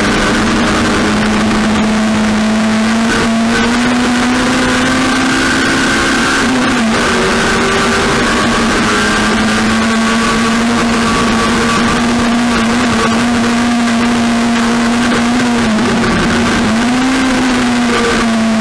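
Race car engine running hard at high, nearly constant revs, with short dips in pitch about 7 and 16 seconds in as the throttle is eased and reapplied.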